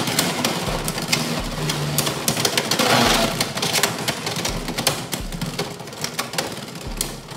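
Two Beyblade X spinning tops whirring and skittering around a clear plastic stadium, with a fast, irregular rattle of clicks and clacks as they strike each other and the stadium walls and rail.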